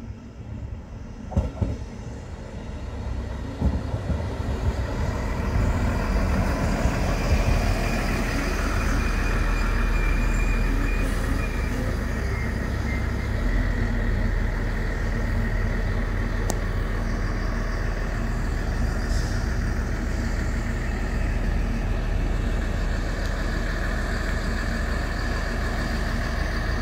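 Siemens Desiro Classic diesel railcar rolling slowly past at close range: its diesel engines run with a steady low rumble and a thin high whine. The sound builds over the first several seconds as the railcar draws near, then holds steady, with a few sharp knocks early on.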